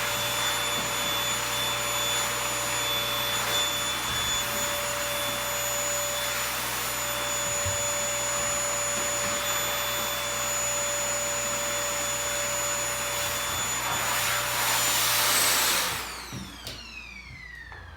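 Toshiba VC-PB9 vacuum cleaner running steadily with a whine over the rush of air, growing a little louder for a couple of seconds, then switched off about sixteen seconds in, its motor whine falling in pitch as it spins down.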